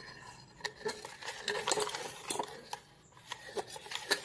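Cutlery and dishes clinking against a mixing bowl as pancake batter ingredients are handled and stirred, a run of irregular light clicks.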